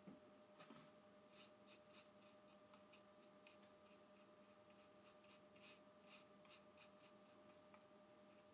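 Faint, irregular light scratching of a watercolor brush stroking across paper, over a faint steady hum.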